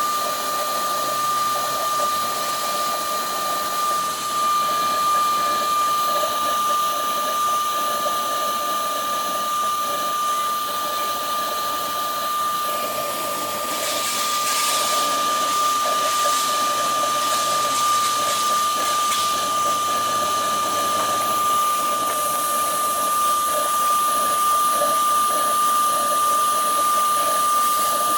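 Single-head CNC router spindle running with a steady high whine while the bit engraves MDF, with a rough cutting hiss that grows a little louder about halfway through.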